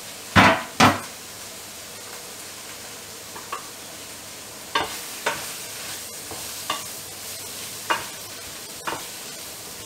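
Chopped chicken and leek sizzling in a frying pan, with a utensil clicking against the pan as it is stirred every second or so. Two loud knocks about half a second apart come just after the start.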